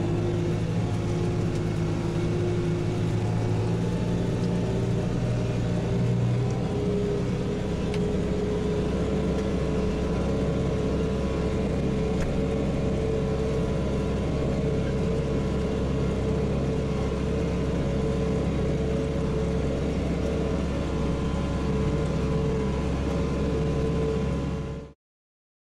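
Case JXU 105 tractor's diesel engine running steadily under load while pulling a disc harrow through grass, heard from the tractor, with a higher tone that climbs slowly in pitch over the first several seconds. The sound cuts off suddenly near the end.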